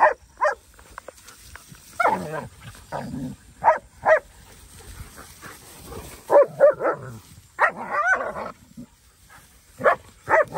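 German Shepherd dogs barking during rough play, a string of short barks in irregular clusters, several coming in quick pairs.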